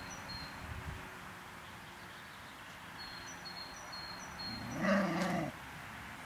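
A whippet gives one short, low growl lasting under a second, about five seconds in, during a nose-to-nose greeting with another dog. Faint bird chirps sound a couple of seconds earlier.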